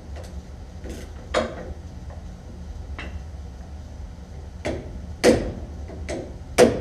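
Scattered metal clanks and clicks of hand tools against a car's front suspension parts during teardown. The two loudest knocks come near the end.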